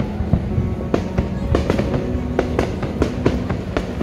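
Aerial fireworks bursting in quick succession, sharp bangs coming irregularly about two or three a second, with music playing underneath.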